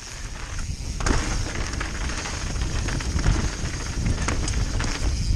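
Mountain bike riding fast down a rough dirt forest trail: tyres and frame rattling over roots and stones, with many sharp clicks and crackles over a steady rumble of wind and ground noise. The noise grows louder about a second in.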